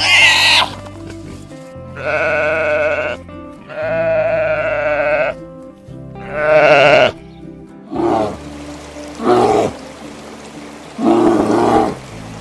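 Bleating livestock, about seven separate calls. Some are long and wavering, a little over a second each, and the later ones are shorter and lower. They sound over background music.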